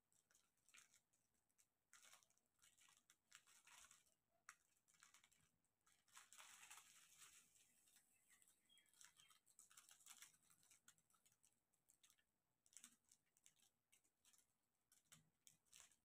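Near silence with faint scattered ticking and soft rustling from diamond-painting work: a drill pen picking up small resin drills and pressing them onto the adhesive canvas, with plastic film crinkling. The rustling is strongest about six to seven seconds in.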